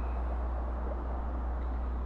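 Wind buffeting a phone's microphone: a steady low rumble with a faint hiss over it.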